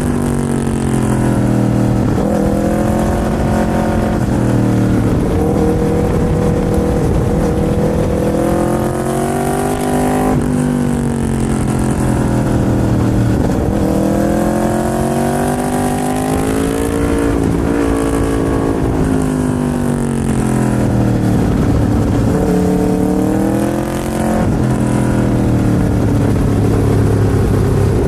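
Aprilia RSV4's V4 engine on the move, its pitch repeatedly rising and falling over a few seconds at a time as the bike accelerates and slows.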